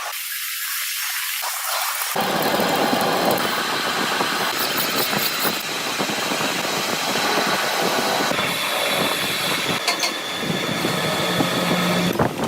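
Steady mechanical noise of workshop machinery running, with a faint high whine throughout.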